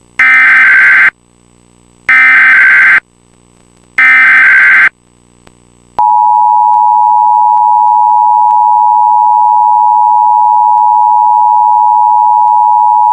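Recreated Emergency Alert System tones: three loud buzzy SAME header data bursts, each about a second long and two seconds apart, then about two seconds in from the last burst the steady two-note EAS attention signal begins and holds. The sequence encodes and announces an emergency alert, here a tornado warning, whose spoken message follows the attention tone.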